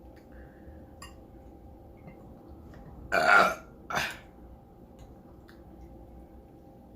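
A woman burping after drinking Dr Pepper: one long, loud burp about three seconds in, falling in pitch, then a shorter burp about a second later.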